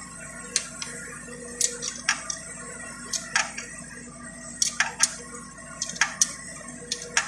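Irregular sharp metallic clicks and taps of tools and metal parts being handled as an alternator is fitted in place on an Isuzu 4HF1 diesel engine, some clicks coming in quick pairs.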